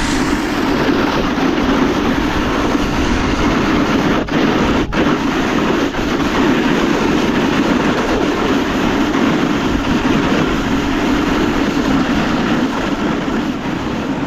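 A vehicle running steadily at speed, its rumble and wind noise continuous, with two brief dips about four and five seconds in.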